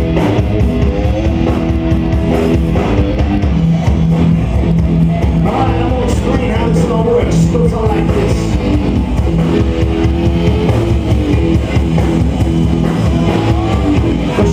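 Rock band playing live: distorted electric guitar over drum kit and sustained bass notes, with a busier lead guitar line from about the middle on.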